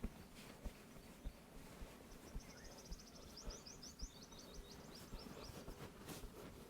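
A small bird twittering in the background: a rapid run of high chirps about two seconds in, lasting a couple of seconds. Faint soft taps and low background noise run underneath.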